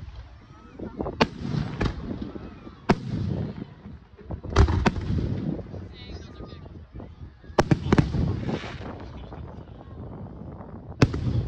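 Aerial fireworks shells bursting overhead: about seven sharp bangs, some in quick pairs, each followed by a rumbling echo.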